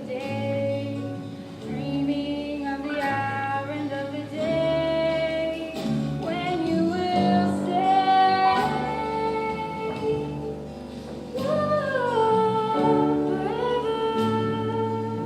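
Singing with instrumental accompaniment: a song from a stage musical, with a sung melody of held and gliding notes over a steady bass line.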